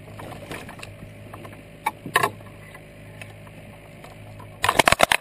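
Fishing tackle and boat fittings clicking and knocking while a hooked bass is reeled in from a float tube. There are a few sharp knocks about two seconds in, then a rapid, loud clatter of clicks near the end.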